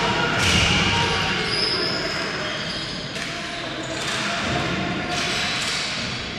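Ball hockey game play in an echoing hall: a ball and sticks knocking on the hard floor, with a few sudden sharp surges and players' voices calling out.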